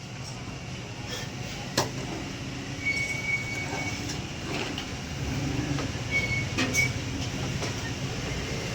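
Workshop noise: a steady low mechanical hum with a few sharp clicks and knocks, and two short high-pitched squeaks.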